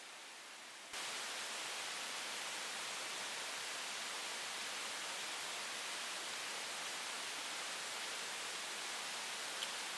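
Steady hiss of broad noise that jumps abruptly louder about a second in, with a faint click near the end.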